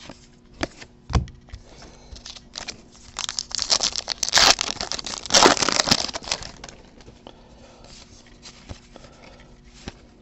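Foil trading-card pack wrapper being torn open and crumpled, a few seconds of crinkling in the middle, with a few light clicks of cards being handled before it.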